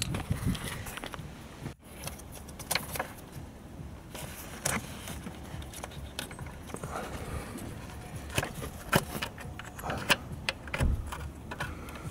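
Irregular metallic clicks and clinks of a hand tool working a fastener in a car's engine bay.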